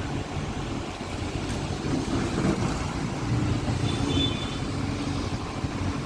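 Tata Hitachi EX 200 LC excavator's diesel engine running steadily under load, its low rumble swelling and easing a little, with a brief faint high squeak about four seconds in.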